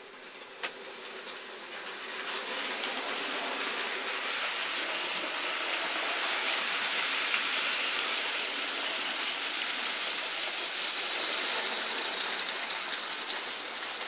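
Model trains running on the layout's track: a steady rolling noise of wheels and motor that builds over the first two seconds, then holds. A single sharp click about half a second in.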